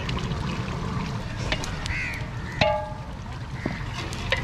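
Outdoor ambience: a steady low rumble with scattered sharp clicks, and a short harsh call about two and a half seconds in.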